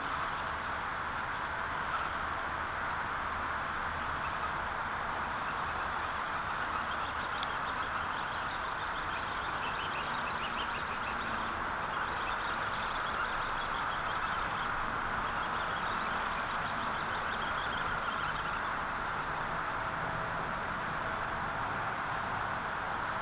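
Radio-controlled rock crawler with a stock 20-turn brushed electric motor driving slowly over rocks, a steady, even whir of motor and gears with no distinct knocks.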